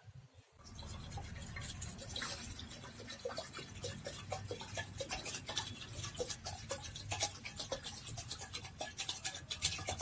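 Water pouring from a plastic bottle into an aluminium pot, a stream of small splashes and gurgles that starts about half a second in.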